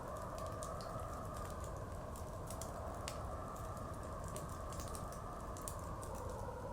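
Wood fire crackling with irregular sharp pops and clicks over steady blizzard wind that whistles in two slowly wavering tones.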